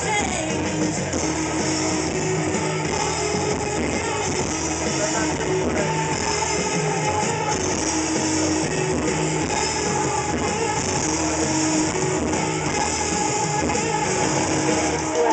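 Loud live rock music with electric guitar, played steadily over a club sound system.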